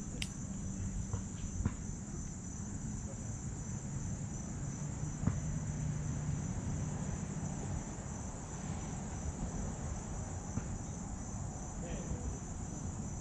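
Steady high insect chorus of crickets, with a low rumble beneath and a few faint clicks.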